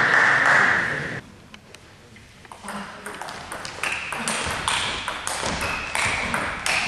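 Table tennis rally: the ball clicking sharply off the rackets and table, several hits a second from about three seconds in. Before it, a loud stretch of hall noise stops about a second in.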